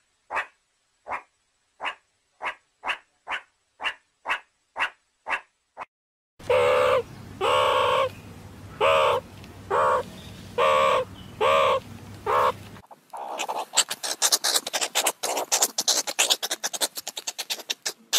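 Meerkat calls: first a run of short, sharp barking calls at about two a second, then about seven louder, harsh drawn-out calls over a low hum, then a fast, dense chattering of clicks near the end.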